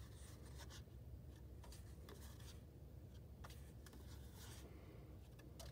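Faint rustles and light taps of construction-paper squares being dropped one at a time onto a tabletop and onto other paper squares, over a low steady hum.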